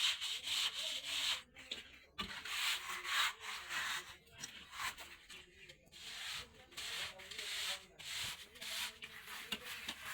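A plastering float or trowel scraping over a plastered wall in repeated strokes, about one a second, with short pauses between them.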